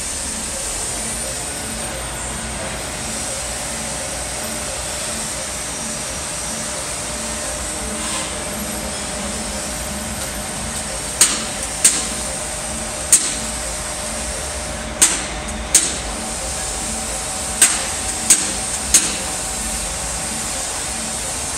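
Steady machine drone from the construction site. From about halfway through, about eight sharp metallic knocks ring out at irregular intervals, hammer blows on the structural steel frame.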